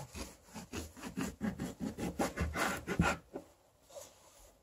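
Kitchen knife cutting a halved blood orange into wedges on a wooden tabletop: a rapid run of short cutting and scraping strokes that stops a little over three seconds in, followed by faint handling of the fruit.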